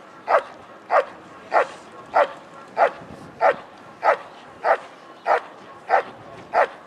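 German shepherd barking in a steady, even rhythm, nearly two barks a second, the repeated barking of a schutzhund dog's hold and bark at the helper.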